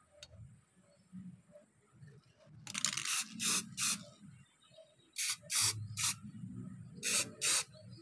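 Aerosol can of black spray paint spraying in short hissing bursts, about eight of them, the first a little longer, starting about three seconds in.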